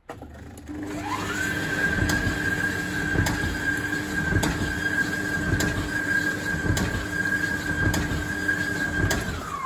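Indesit IDCE8450 condenser tumble dryer running on test with its new belt. The motor whine rises as it starts and then holds steady while the turning drum gives a regular knock about once a second; the owner puts the knock down to a bumped, not perfectly round drum track riding over its support. Near the end the whine begins to drop as the machine winds down.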